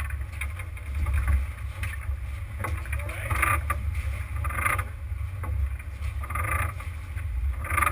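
Steady low rumble of a sportfishing boat at sea, with wind on the microphone and short hissing bursts every one to two seconds.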